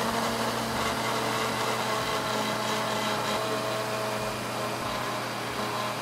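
Philco countertop blender running steadily at an even speed, churning a liquid carrot cake batter in its open plastic jar.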